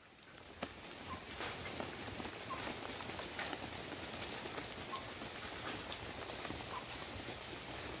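Light rain falling on foliage: a steady hiss with scattered sharper drips. It fades in over the first second.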